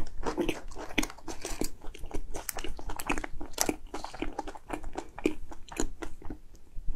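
Close-miked chewing and mouth sounds of a person eating a soft dessert cake, with many small wet clicks and smacks. Paper cake liners rustle as the next cake is lifted from its box.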